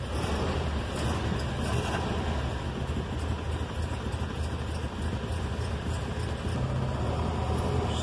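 Petrol engine of a 2012 Toyota Hilux idling steadily just after a crank-no-start fault was fixed, running but misfiring.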